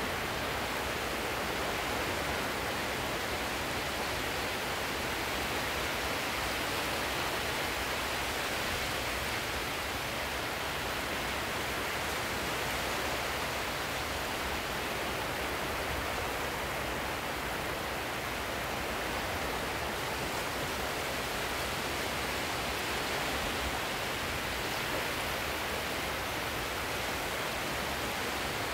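Steady, even rushing of sea surf, with no single wave standing out.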